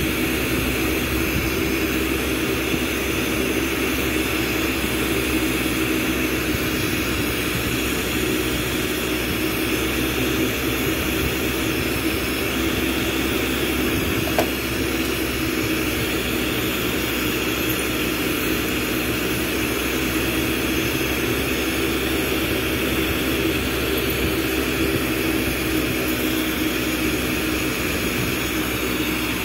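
Glassblowing bench torch flame burning with a steady rushing noise as glass is heated in it. A single brief click about halfway through.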